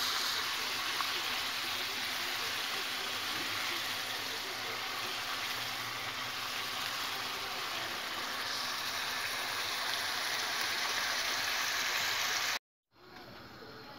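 Ground-beef and mushroom sauté sizzling and simmering in a frying pan, a steady hiss. It cuts off abruptly near the end, and a much quieter hiss follows.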